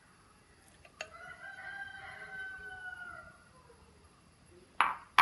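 A rooster crowing once in the background: one long call of about two and a half seconds. Near the end come two sharp knocks close together, louder than the crow.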